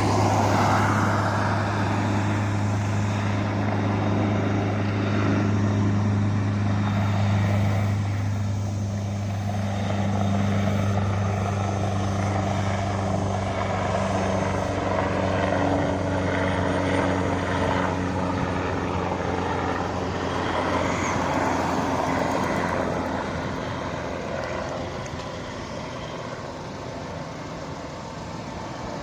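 Helicopter in flight: a steady low hum of rotor and engine over a broad noise of air, which fades gradually over the last several seconds as it moves away.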